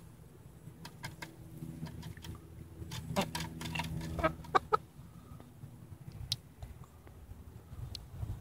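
Hens clucking in short, scattered calls, most of them bunched in the middle.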